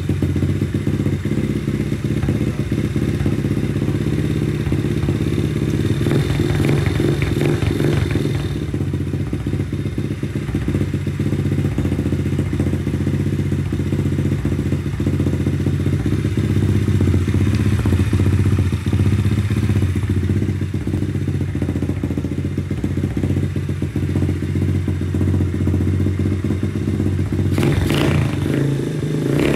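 Lifan 125 cc single-cylinder four-stroke pit bike engine idling steadily just after a kick start, warming up. Brief clatter near the end.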